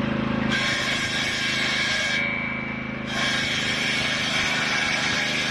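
Engine-driven, belt-driven circular saw ripping a wooden plank: the engine runs steadily underneath while the hiss of the blade cutting wood starts about half a second in, drops out briefly around two seconds in, then resumes. The blade is running off-centre on its shaft and wobbles.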